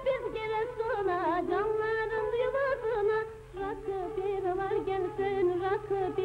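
A woman singing a Turkish folk song in long, ornamented notes that waver in pitch, with a brief break for breath about halfway. A steady low hum runs underneath.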